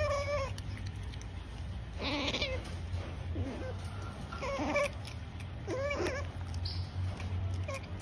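Asian small-clawed otter making short pitched nom-nom calls while eating from a hand, about half a dozen separate calls a second or two apart.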